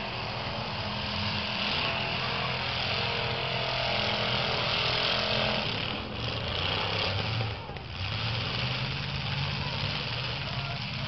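Several demolition derby cars' engines running hard, their pitch rising and falling as they rev, with crowd voices mixed in.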